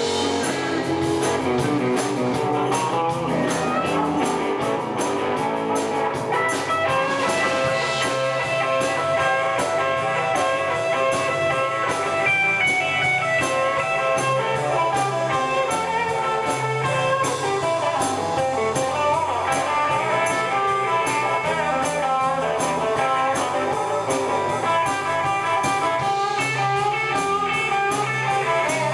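Live blues band playing an instrumental passage: amplified harmonica played into a microphone, with sustained and bending notes, over electric guitars and a drum kit keeping a steady beat.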